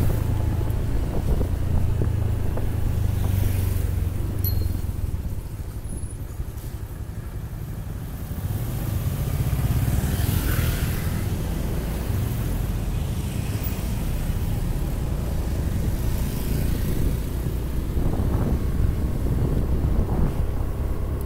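Steady low rumble of a moving road vehicle with wind buffeting the microphone, dipping briefly and swelling again about ten seconds in.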